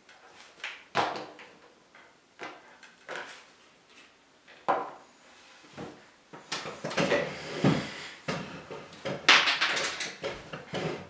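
Hard plastic parts of a JT Proflex paintball mask being handled and fitted back together on a wooden table: scattered clicks, knocks and clatter, busier and louder in the second half.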